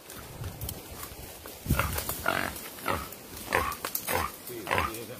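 A wild hog squealing: a string of harsh cries about twice a second, starting about a second and a half in.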